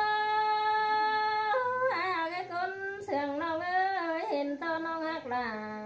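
A woman singing unaccompanied in Thái folk style (khắp): a long held note for about the first second and a half, then a winding, ornamented line with wavering pitch and short breaks.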